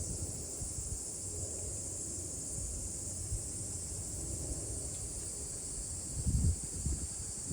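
Outdoor ambience: a steady, high, even insect chorus, with low wind rumbles buffeting the microphone about six seconds in.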